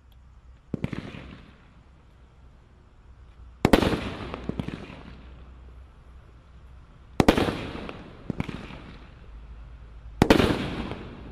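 A 13-shot consumer firework cake firing: about six sharp reports, the loudest a little over a third of the way in, about two-thirds in and near the end, each trailing off over about a second as the shells launch and break in the sky.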